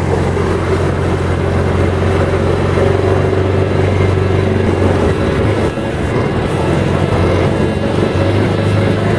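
Quad bike (ATV) engine running steadily as the machine is ridden, its note weakening about six seconds in and picking up again near the end.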